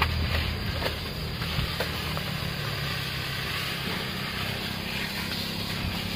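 Powered insecticide sprayer running steadily: a low motor hum under the hiss of spray from the wand's nozzle, with a few faint clicks in the first couple of seconds.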